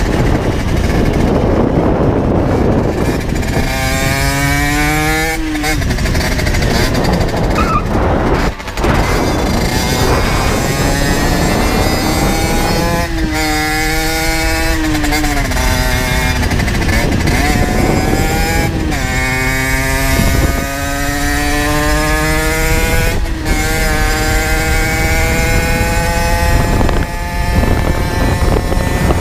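Generic Trigger SM 50's 50 cc two-stroke engine, fitted with an aftermarket Turbokit exhaust, pulling hard under way. Its pitch climbs in several runs, each broken off by a gear change, over steady wind rush.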